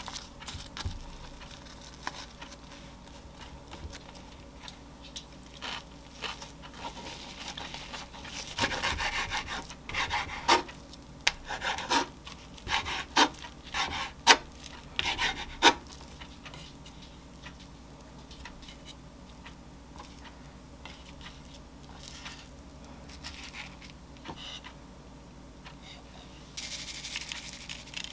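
Kitchen knife slicing a rolled cabbage kimbap on a wooden cutting board: a run of about ten sharp cuts, each ending in a tap on the board, lasting some eight seconds. Before it come soft rubbing sounds of hands pressing the seaweed roll. Near the end a sesame grinder gives a short grinding rasp.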